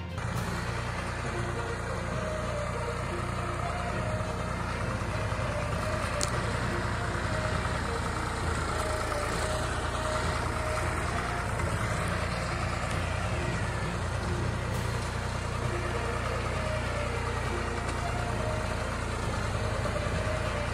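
Farm tractor's diesel engine running steadily while it drags a levelling implement over a rough dirt road.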